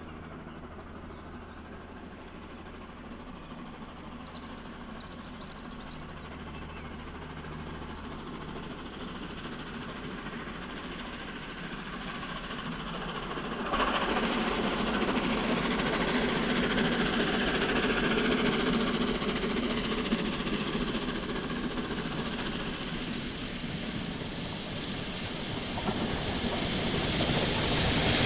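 Peppercorn A1 Pacific steam locomotive 60163 Tornado and its charter train approaching, the train noise growing steadily louder. It jumps up suddenly about halfway through and is loudest near the end as the train comes close.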